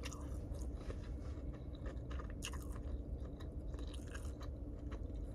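A person chewing food with mouth close to the microphone, with irregular crunchy bites every so often over a steady low hum.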